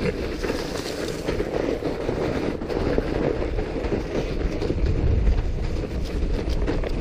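A fat bike's 4.5-inch tires rolling over packed snow: a steady crunching rumble with many small ticks, and a low buffeting of wind on the microphone.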